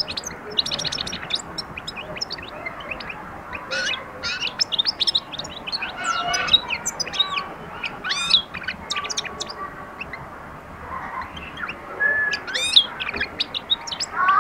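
European goldfinch singing: quick runs of twittering chirps and trills sliding up and down in pitch, with a short pause about ten seconds in.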